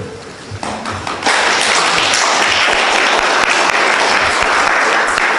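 Audience applauding: a few claps about half a second in, then full, steady applause from just after a second in.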